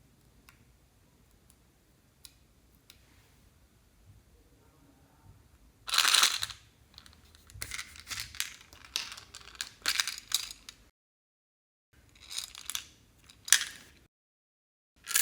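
Hands squeezing and stretching slime: a run of sticky, crackling squelches that starts about a third of the way in, broken twice by short dead silences.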